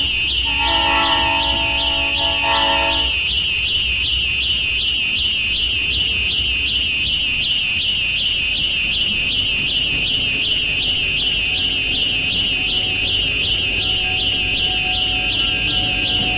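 A train horn sounds a chord for about two and a half seconds near the start, over a low rumble. A high warbling tone, like an alarm, pulses about three to four times a second throughout. Faint horn-like tones return near the end.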